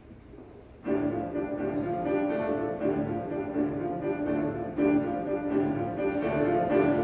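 Grand piano starting a choral accompaniment about a second in, playing a rhythmic repeated figure as an introduction before the choir enters.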